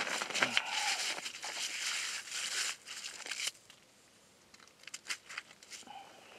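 Crunching and rustling of packed snow and slush as a freshly caught fish is handled on the ice beside the hole. It stops about three and a half seconds in, followed by a few light clicks.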